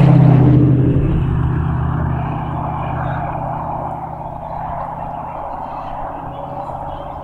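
A motor engine's steady hum, loudest at the start and fading gradually as it moves away.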